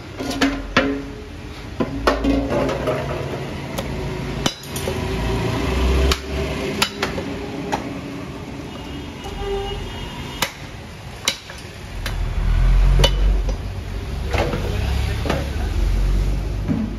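Heavy meat cleaver chopping through a beef leg on a wooden block: about ten hard chops at irregular intervals, with a low rumble underneath.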